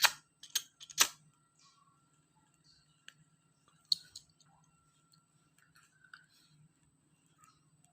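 A few sharp clicks, three within the first second and one more about four seconds in, over a faint steady low hum.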